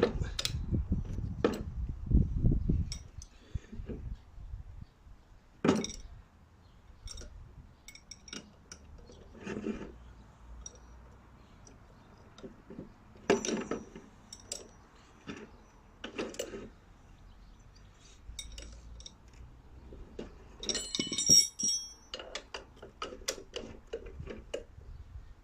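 Metal tools clinking and knocking against a motorcycle fork leg as an Allen key is worked on the drain bolt in the bottom of the fork. There is heavy handling noise in the first few seconds, then scattered single clinks, with a quick run of bright metallic clinks near the end.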